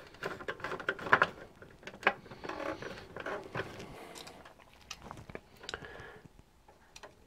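Stiff insulated electrical wire being handled and worked into a breaker subpanel: irregular light clicks, taps and rustles against the metal box.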